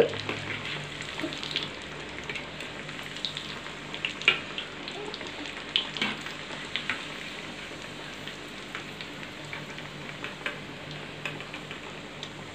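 Chicken nuggets deep-frying in hot oil: a steady sizzle with scattered sharp crackles and pops, a few louder ones partway through, as a slotted metal spoon stirs through the oil.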